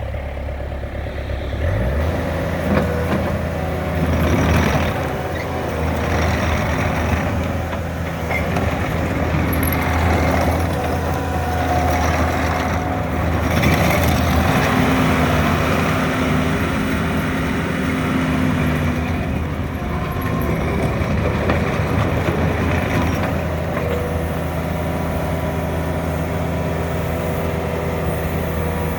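Takeuchi TL230 Series 2 compact track loader's diesel engine running under load as the machine drives, its pitch rising and falling with the throttle, with a few short knocks.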